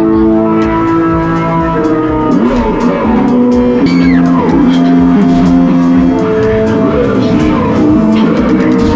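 Music with a steady beat and held, changing chords.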